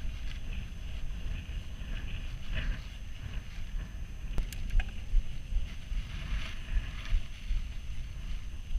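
Wind buffeting the microphone: a low rumble that comes and goes in gusts, with one sharp click about halfway through.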